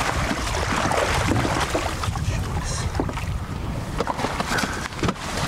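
Steady wind rumbling on the microphone in an open boat on choppy water, with a few short sharp clicks and knocks about three seconds in and near the end.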